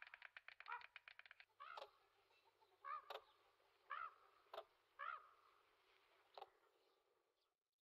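Common cranes calling: a rapid rolling, pulsed trumpeting in the first second and a half, then about five short separate calls spread over the next five seconds, with a couple of sharp clicks among them. The sound cuts off abruptly near the end.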